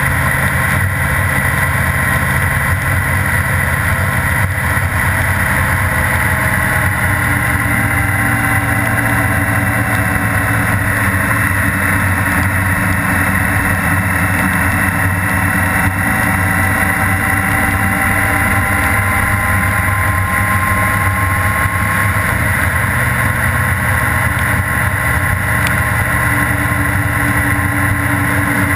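Honda Gold Wing GL1800's flat-six engine running at a steady cruise, mixed with wind rush on the microphone and the hiss of tyres on a wet road. The engine note drifts gently up and down in pitch through the bends, with no sharp events.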